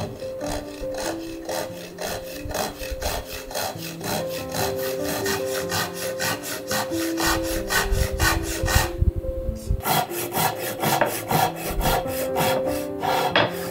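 Hand saw cutting through a walnut stick in quick, even strokes, about three a second, pausing briefly about nine seconds in and then resuming faster. Background music runs underneath.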